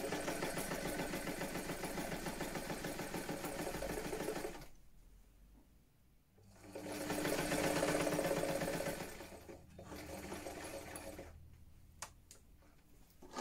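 Vintage electric sewing machine stitching through fabric in a stay-stitch line. It runs at a fast even rate for about four and a half seconds and stops, then runs again louder before slowing and going quiet. A few single clicks follow near the end as the handwheel is turned by hand.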